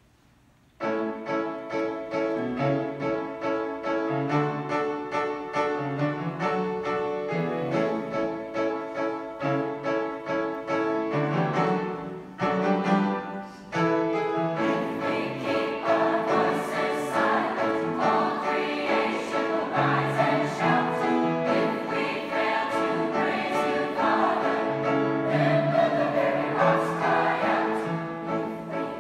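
Youth choir singing a worship song with piano accompaniment. The music starts about a second in and grows fuller from about halfway on.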